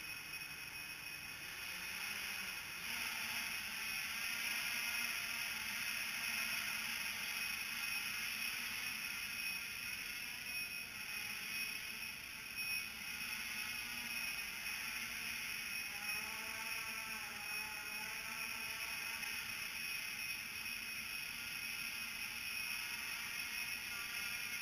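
Electric motors and propellers of a small multirotor drone whirring in flight, in altitude-hold mode under barometer control. The whir grows louder about two seconds in, then holds steady, its pitch wavering slightly as the motor speed shifts.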